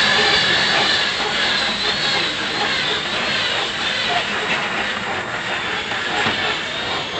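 Open-sided safari ride truck driving along its track: a steady mix of engine, tyre and wind noise with a high hiss, and a single knock about six seconds in.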